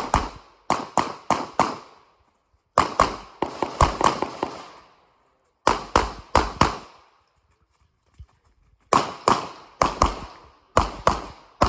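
Rapid strings of 9mm pistol shots from a Glock 34 being fired at competition speed, several quick shots at a time with pauses of one to two seconds between strings.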